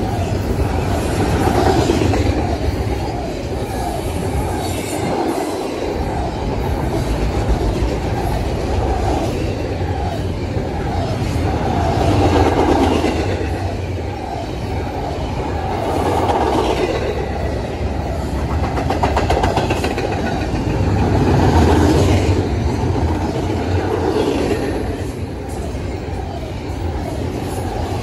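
Double-stack intermodal freight cars rolling past at speed: a steady rumble and clatter of steel wheels on the rails, swelling and easing as each car goes by, with a faint high wheel squeal now and then.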